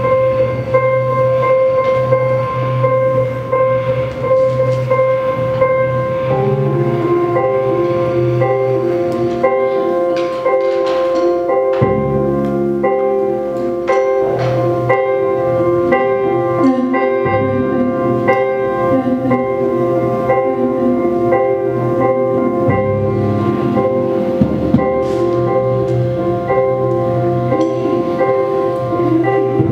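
Live improvised music on keyboards and synthesizers: a held drone throughout, with a repeating pattern of stepped keyboard notes coming in about six seconds in over low bass notes.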